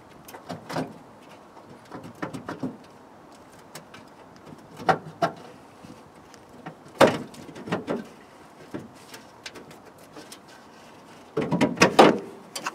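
Scattered clicks and knocks of metal fixings and tools being worked by hand inside a car's front wheel arch while the inner wing panel's fixings are undone, with a louder clattering cluster near the end.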